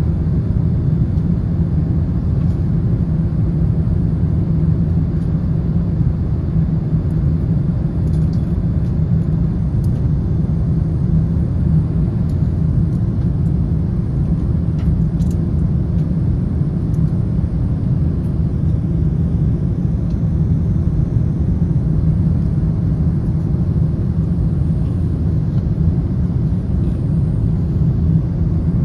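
Steady low rumble of a jet airliner in flight, heard inside the cabin: engine and airflow noise.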